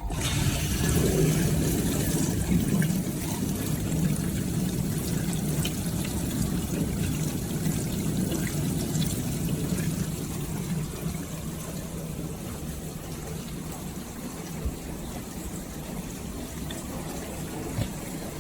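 Beko DFN05211 dishwasher running with water rushing and splashing inside it over a steady low hum. The sound jumps up sharply at the start and eases off gradually over the following seconds.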